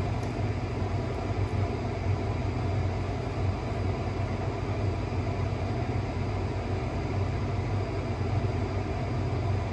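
Steady low hum and rumble of a running machine, such as an engine or fan, unchanging throughout with no distinct events.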